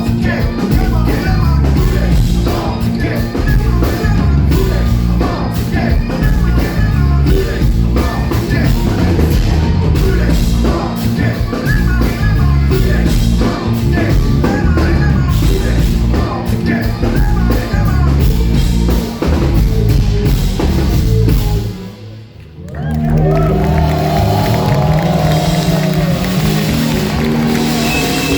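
Rock band playing live, loud, with drum kit, guitars and singing; the band stops abruptly about 22 seconds in and a slower passage of held notes begins.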